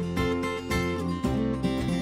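Background music with strummed acoustic guitar, a steady run of chords.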